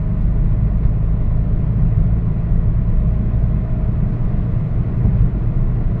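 A moving car's road and engine noise, a steady low rumble, heard from inside the cabin.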